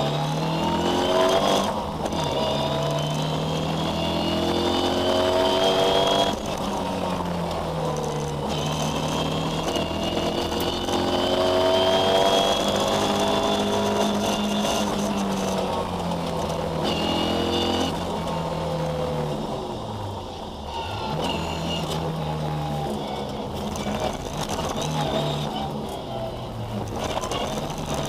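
Ford Escort rally car's engine, heard from inside the cabin, accelerating up through the gears: the pitch climbs and then drops sharply at each gear change, several times over, with a slower dip and recovery about two-thirds of the way through.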